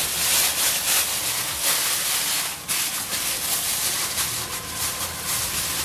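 Tissue paper rustling and crinkling as it is handled and pressed into a small cardboard jewellery box.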